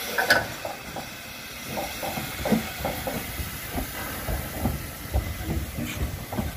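Metre-gauge Harz steam locomotive 99 7245-6, a 2-10-2 tank engine, rolling slowly with steam hissing from its cylinder drain cocks. There is a loud short hiss just after the start, and scattered knocks and a low rumble from the wheels and running gear on the rails.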